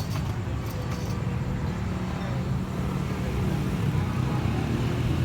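Steady low rumble of street traffic, with a few faint clicks during the first second.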